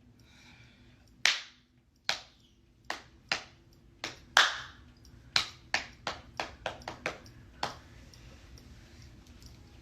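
Hand claps: about a dozen sharp claps at an uneven pace, coming quicker in a run around five to seven seconds in.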